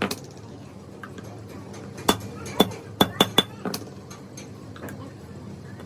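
A hammer tapping on metal, about seven sharp strikes that each ring briefly, uneven in spacing, with a quick run of three about three seconds in.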